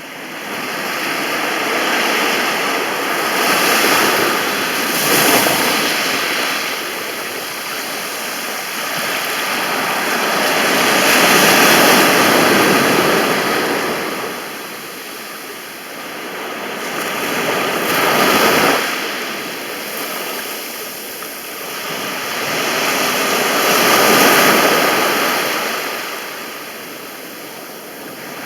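Mediterranean sea waves breaking and washing up a beach, the surf swelling and ebbing in slow surges a few seconds apart.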